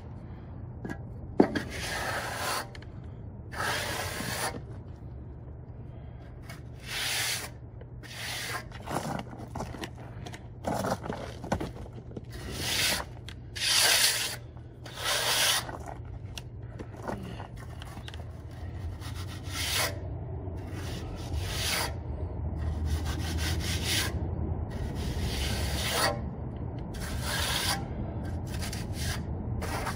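A hand trowel scraping over wet cement in a series of separate strokes, irregularly spaced and coming closer together later on. There is one sharp click about a second and a half in, over a steady low hum.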